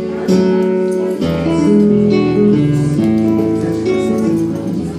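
Acoustic guitar-family instrument played live, strumming and plucking chords whose notes ring on, with a new bass note entering just over a second in.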